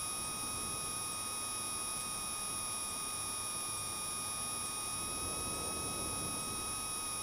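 Steady, muffled cabin drone of a Cessna 172 in flight, from its engine, propeller and airflow, with a steady high-pitched whine over it.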